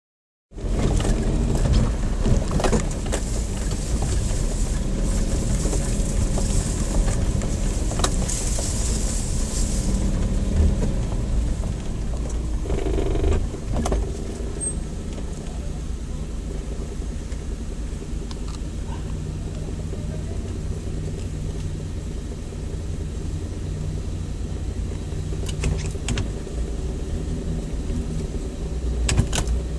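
Four-wheel-drive vehicle's engine running steadily at low revs with a low rumble, and a few sharp knocks, two of them near the end.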